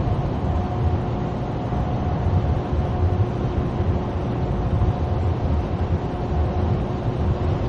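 Steady road noise inside a moving car's cabin: tyres running on asphalt, with a deep rumble and a faint steady hum.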